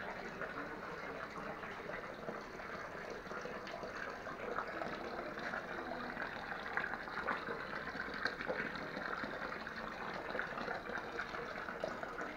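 A thin stream of thermal spring water pouring steadily from a metal spout and splashing into a stone basin.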